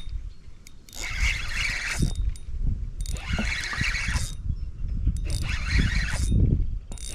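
Fishing reel running in three spurts of a second or so each, with wind rumbling on the microphone.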